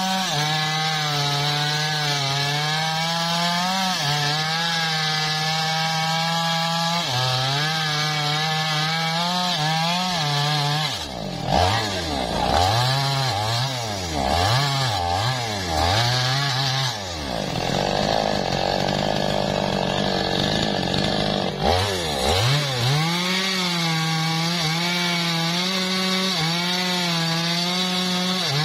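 Two-stroke petrol chainsaw running under load as it saws through a thick log. From about a third of the way in to about two-thirds, the engine revs fall and climb again several times, then it settles back to a steady pitch in the cut.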